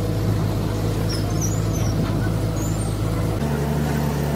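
A heavy machine's engine running steadily, with a deep even drone. Its note changes abruptly about three seconds in.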